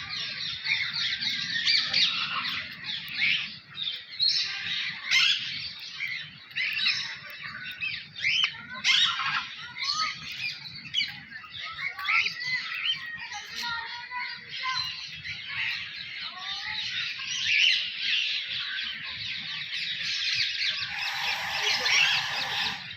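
Many small birds calling at once, a dense, unbroken chatter of overlapping high calls, with a brief hiss near the end.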